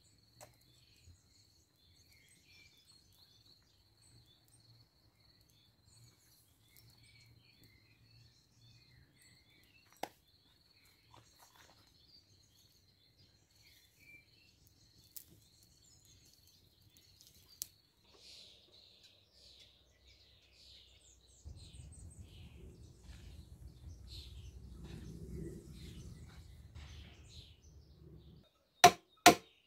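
Faint birds chirping over a steady high thin trill, with a few isolated clicks and, from about two-thirds through, a low rumble. Near the end a fast run of loud, sharp knocks begins, about two or three a second.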